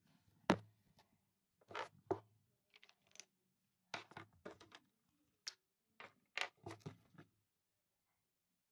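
Close handling noise: a run of irregular knocks, clicks and rubs, the loudest about half a second in, as the recording phone is picked up and covered and the felt-tip markers are swapped. It stops about a second before the end.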